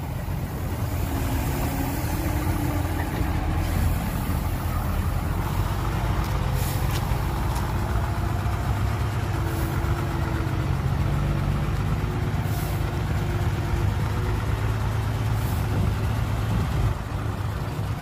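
Heavy diesel engine of earthmoving machinery running steadily, a low rumble with a few faint clicks.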